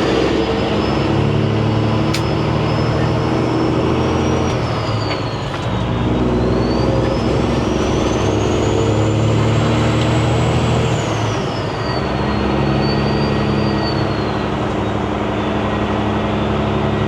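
Semi truck's diesel engine pulling under load with a high turbocharger whistle. The whistle climbs and falls as the engine's note changes, dropping away around five and twelve seconds in and rising again after each drop.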